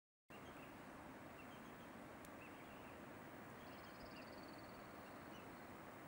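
Faint, steady outdoor ambience hiss with a few small bird chirps scattered through it, and a short high bird trill of quick, slightly falling notes a little past the middle. It starts after a split second of dead silence.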